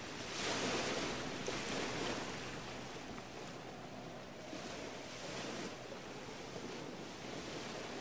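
Sea surf washing onto a sandy beach: a steady hiss of waves that swells and eases slowly.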